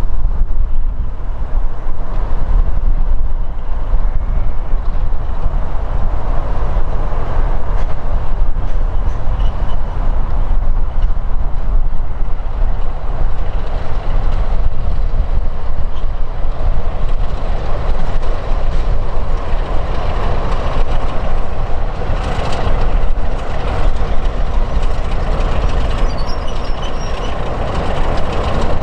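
Class 33 diesel locomotive 33109 approaching with its train, its Sulzer eight-cylinder engine running and growing louder over the last third, under heavy wind rumble on the microphone.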